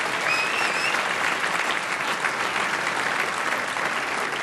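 Studio audience applauding steadily: a dense patter of many hands clapping. A brief high call rises above it about half a second in.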